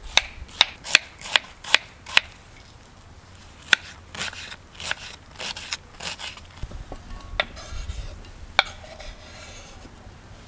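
Kitchen knife chopping onion on a wooden cutting board: a quick run of sharp knocks, about two and a half a second, then slower, more scattered cuts. Near the end the knife scrapes the chopped onion off the board into a glass bowl.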